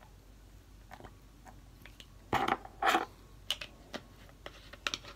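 Plastic bottle being handled: scattered light clicks and two short, louder crackles about half a second apart.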